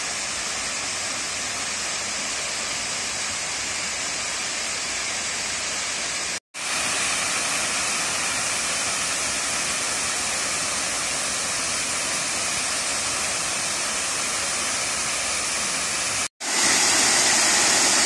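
Steady rush of water from a small forest waterfall falling into a rock pool. The sound cuts out for a split second about six seconds in and again near the end, and comes back louder each time.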